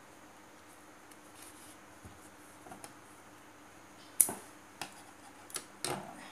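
Small scissors snipping through a yarn tail with one sharp click about four seconds in, followed by a few lighter clicks and knocks as the work is handled and set down.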